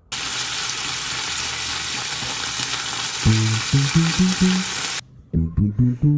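Ground meat sizzling in a frying pan, a steady hiss that cuts off abruptly about five seconds in. Background music of short plucked low notes comes in about three seconds in.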